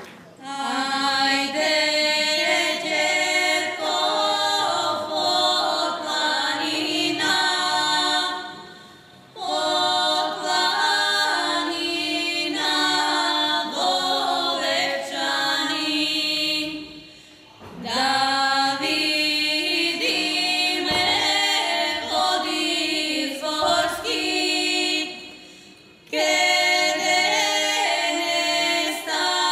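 Three women singing a Macedonian folk song in close harmony without instruments, in long held phrases of about eight seconds with short breaks between them.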